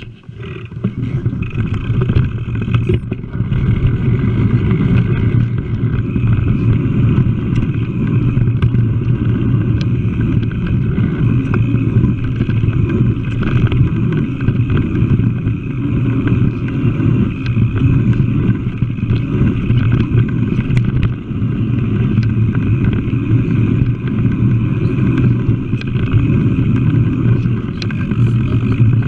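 Steady, loud rumble of wind buffeting and trail vibration picked up by an action camera riding on a mountain bike along dirt singletrack.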